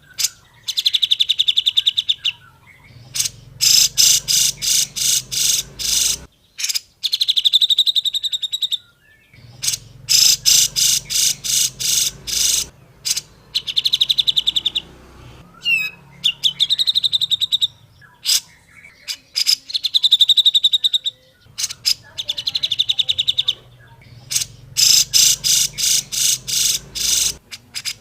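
Grey-cheeked bulbul (cucak jenggot) calling in loud phrases of rapid, evenly repeated notes. Each phrase lasts one to three seconds, with short pauses between them.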